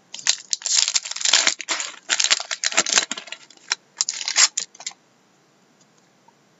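Foil wrapper of a trading-card pack crinkling and tearing as it is ripped open by hand, a run of loud crackles that stops just before five seconds in.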